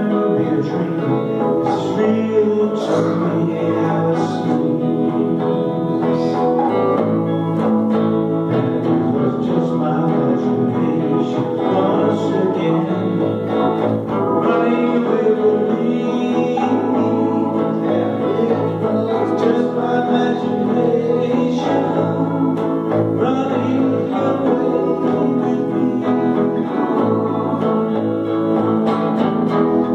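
Live band playing a song: a man singing into a microphone over strummed acoustic and electric guitars.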